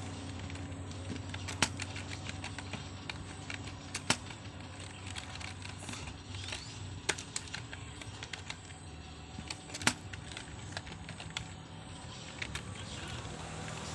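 Typing on a computer keyboard: quick, irregular key clicks with a few louder strokes, over a steady low hum.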